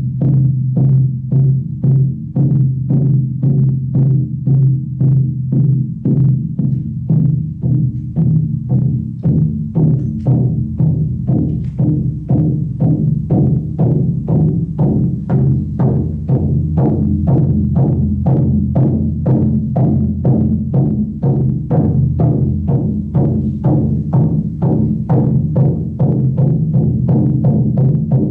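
Large hide shaman frame drum beaten steadily with a beater, about two strokes a second, over a continuous low drone.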